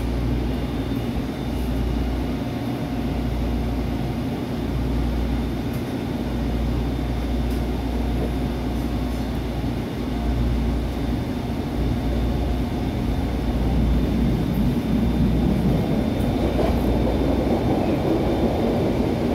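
A SEPTA Route 101 suburban trolley running along its track, heard from inside the car: a steady rumble of wheels and motors with a faint steady whine. It grows louder about two-thirds of the way through.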